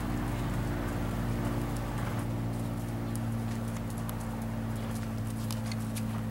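Horse's hooves beating on sand arena footing at the trot, with a steady low hum underneath.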